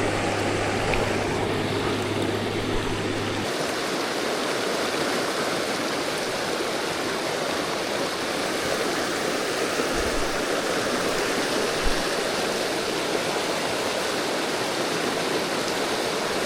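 River water rushing steadily, a continuous flow with no let-up. A low steady hum sits under it and cuts off about three and a half seconds in.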